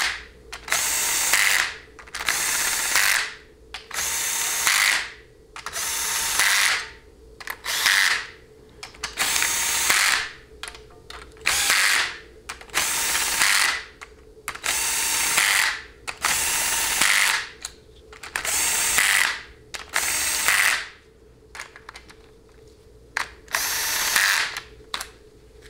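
Cordless drill/driver with a socket running in the bolts that hold a 700R4 transmission valve body, one bolt after another: a dozen or so short spins, each about a second long, with brief pauses between them and a longer pause near the end.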